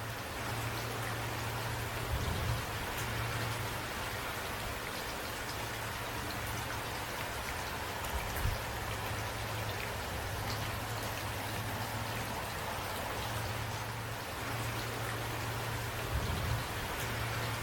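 Steady rain, with scattered drops ticking on a surface. There are three brief low thuds, about 2, 8 and 16 seconds in.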